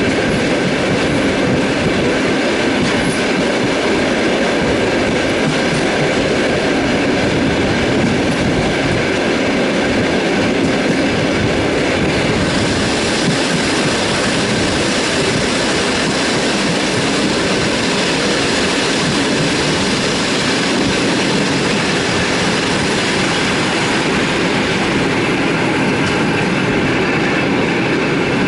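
Russian Railways passenger train running at speed, heard from aboard: a steady rumble of wheels on the rails. About 12 seconds in a brighter hiss comes up, easing again near the end.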